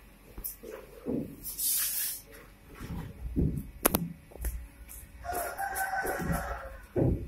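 A rooster crowing once, a single held call of about a second and a half starting about five seconds in. Scattered knocks and a sharp click about four seconds in, the loudest moment, come before it.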